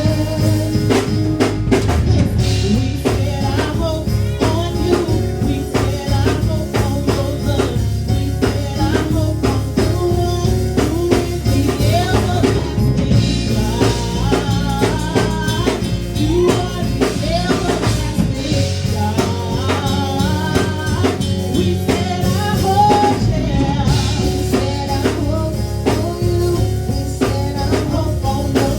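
Gospel praise music with a drum kit keeping a steady beat, sustained bass and keyboard notes, and a voice singing a wavering melody over it.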